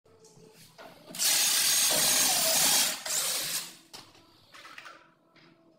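Cordless drill running at full speed into the edge of an MDF wardrobe panel for about two seconds, then a shorter, weaker burst, followed by light knocks from handling the panel.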